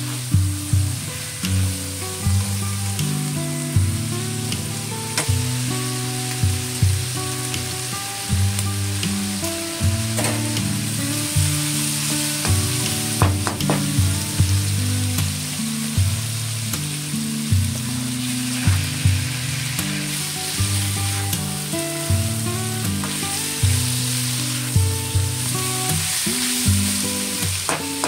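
Pork and onions sizzling in a hot wok, stirred and tossed with a metal spatula that clicks against the pan now and then. Background music plays underneath.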